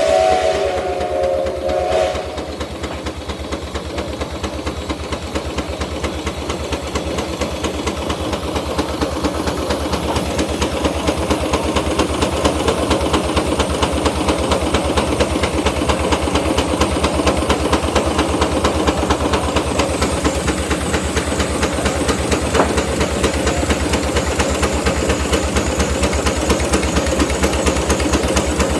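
Case portable steam engine's whistle sounds and cuts off about two seconds in. The engine then runs with a fast, even exhaust beat and hiss that grows louder over the next ten seconds or so, then holds steady.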